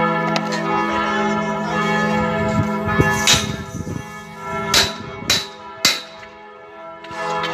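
Church bells ringing, the tones of several bells overlapping and dying away, then sounding again near the end. A few sharp cracks cut in about halfway through.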